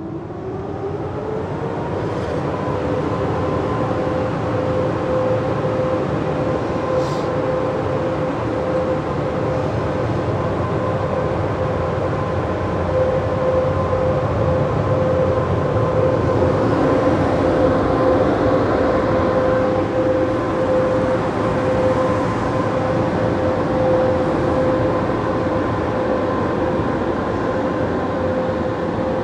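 Touchless car-wash dryer blowers running up to speed, heard from inside the car: a whine that rises for about a second and then holds steady over a loud, even rush of air.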